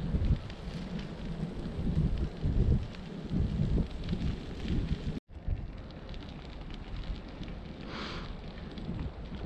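Wind buffeting the microphone in uneven low rumbling gusts, with a sudden brief dropout about five seconds in, after which the rumble is steadier and lighter.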